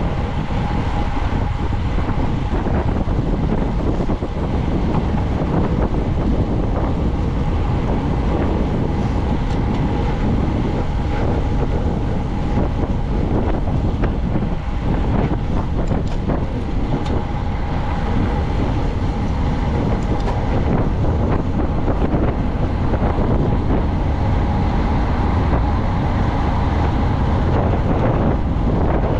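Steady wind rush over the microphone from a bicycle moving at racing speed, with continuous rolling noise underneath and a faint constant tone.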